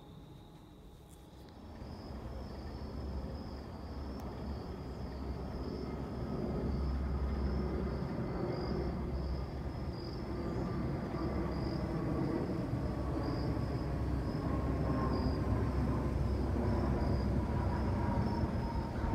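Jet airliner passing overhead: its engines make a rumbling roar that builds steadily in loudness, with a faint whine slowly falling in pitch.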